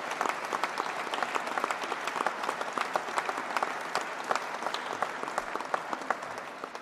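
A crowd applauding, many hands clapping at once, dying away near the end.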